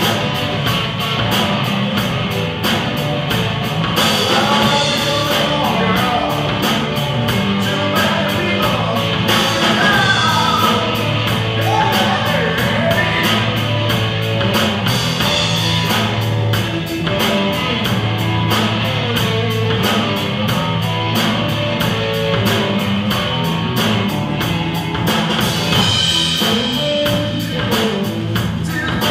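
A live rock band playing: drum kit keeping a steady beat with fast, even cymbal strokes, bass guitar and electric guitar, with a singer at the microphone.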